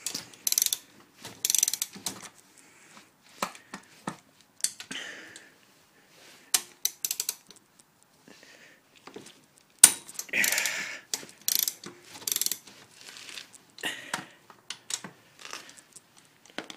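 Socket ratchet wrench clicking in short, irregular spells with pauses between them as the engine's cylinder head nuts are backed off.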